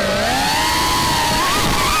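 Four DYS SE2205 2550KV brushless motors with DAL T4045 propellers on an FPV racing quadcopter, whining as heard from on board. The pitch dips near the start and climbs again about one and a half seconds in as the throttle changes.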